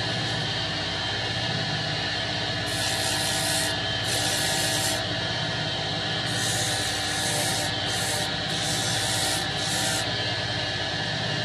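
A wood lathe motor runs steadily while a spinning turned wooden ball is sanded by hand. From about three seconds in there are several separate strokes of gritty hiss as the sandpaper is pressed on and lifted off.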